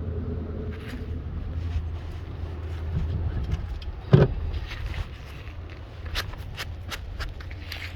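Wind rumbling on the microphone, with a single thump about four seconds in and scattered light clicks and scrapes near the end as small debris is handled.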